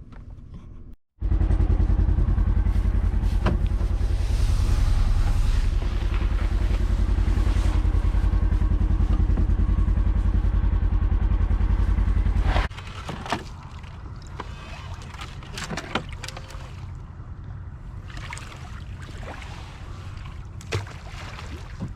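Vehicle running while riding in it: a loud, steady low rumble for about eleven seconds that drops suddenly to a quieter rumble with a few sharp knocks.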